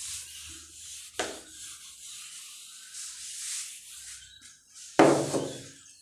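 Whiteboard duster rubbing across the board as the writing is wiped off, with a sharp knock about a second in. A louder thump comes near the end.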